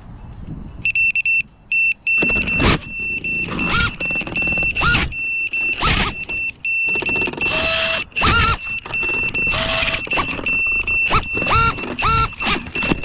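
A 5-inch FPV freestyle quadcopter (iFlight Nazgul5) flying, its brushless motors whining and surging in repeated sharp throttle punches, each rising quickly in pitch and then holding. A steady high tone cuts in and out through it.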